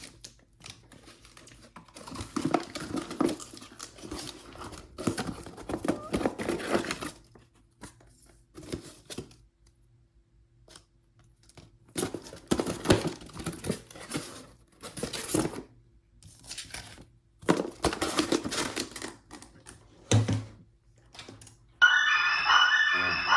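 Bursts of rustling and crinkling handling noise with a short low thump about twenty seconds in; near the end, music starts playing loudly through the PRV 6MB200-4 midbass speaker under test.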